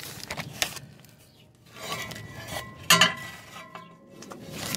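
Metal clinks and knocks as a Jeep fan clutch and its fan are lifted out and handled, with one sharp knock about three seconds in that leaves a ringing tone for over a second.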